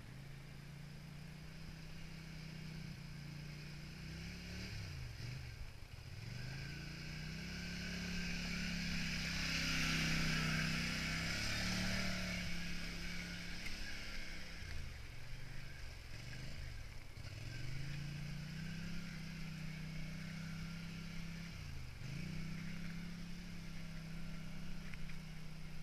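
Can-Am quad (ATV) engine running under throttle on a rough climbing trail. Its pitch rises and falls with the throttle and dips sharply several times as it eases off. It is loudest about ten seconds in, working up a steep bank, with a rushing hiss over it.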